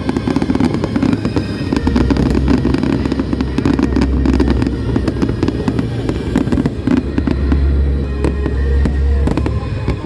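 Aerial fireworks display: many shells bursting and crackling in quick succession over a continuous low rumble, with music playing along.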